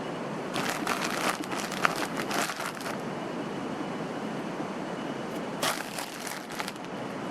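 Crinkling handling noise, in two bouts: one of about two and a half seconds starting half a second in, and a shorter one near the end. Both sit over a steady rushing background with a faint high tone.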